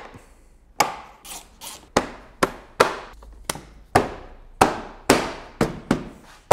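A rapid series of sharp knocks, about two a second, as the Alpina B7's plastic front bumper cover is pressed and knocked by hand onto its mounts and clips.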